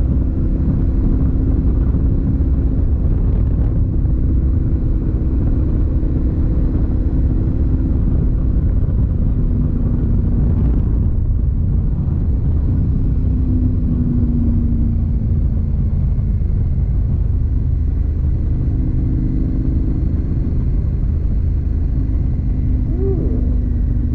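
Motorcycle engine running steadily while riding, its pitch shifting slightly now and then, under a heavy low rumble of wind on the microphone.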